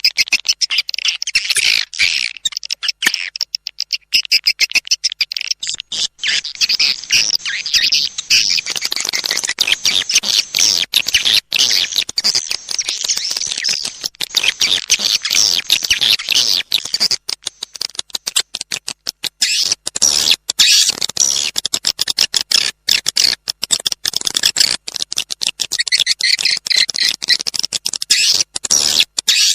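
Swiftlet lure-call recording: a dense, continuous stream of rapid, high-pitched chirps and clicks. This is the call played at swiftlet nesting houses to attract edible-nest swiftlets.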